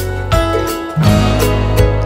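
Background music with sustained notes over a steady beat.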